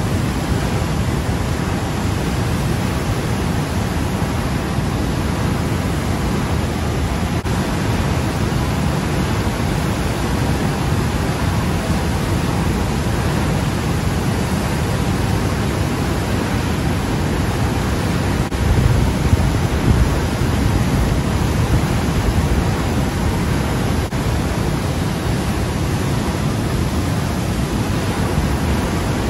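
Loud, steady rush of white water pouring out through a river dam's open gates and churning in the tailwater below, swelling a little in the low end about two-thirds of the way through.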